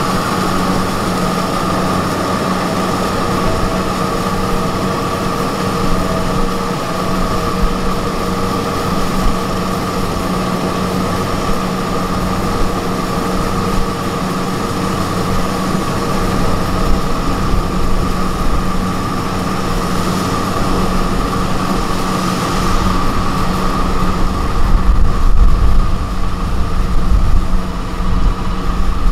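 Kubota DC-70 rice combine harvester's diesel engine running steadily with a constant whine; the low rumble grows heavier and louder near the end.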